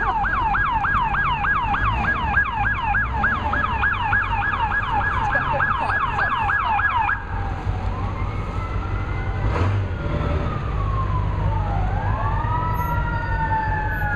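Emergency vehicle siren on a fast yelp, about three sweeps a second, switching about seven seconds in to a slow rising and falling wail; a second wailing siren overlaps near the end, over a steady low rumble of traffic.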